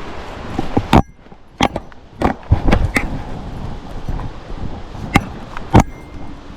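Footsteps of someone walking over rough, rocky ground and brush: irregular crunching steps and sharp knocks and scrapes at uneven spacing over a rustling, noisy bed.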